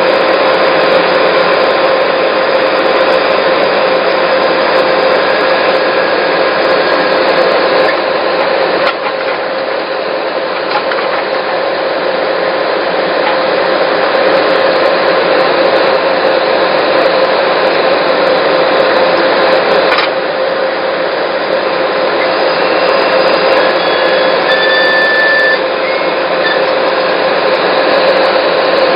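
Skid steer loader with a backhoe attachment running steadily under work, its engine and hydraulics giving a dense mechanical noise with a steady whine.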